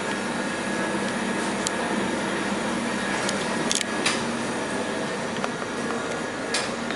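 Steady indoor machine hum and hiss, with a few light clicks about halfway through and again near the end.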